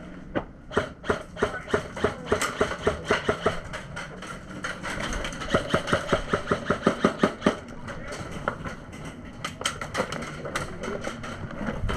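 Airsoft gun firing strings of sharp shots, a few a second at first, then a faster run of shots in the middle, with more shots near the end.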